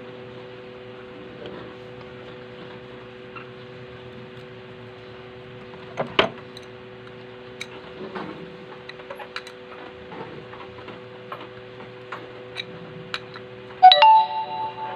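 Small metal sewing-machine parts and hand tools being handled: scattered light clicks and taps, a louder knock about six seconds in, and a sharp metallic clink near the end that rings briefly. A steady hum runs underneath.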